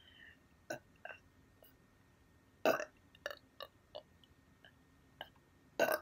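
A woman hiccupping with her hand held over her mouth and nose: two sharp hiccups about three seconds apart, the loudest sounds here, with several fainter short catches and clicks in between.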